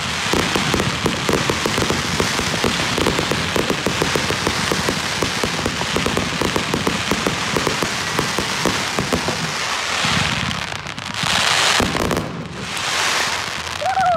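Fireworks crackling: a dense, rapid run of small pops for about ten seconds, then three long hissing swells near the end.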